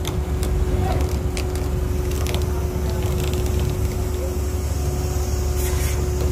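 Purse seiner's engine and deck machinery running steadily: a constant low rumble with a steady hum and a few light knocks.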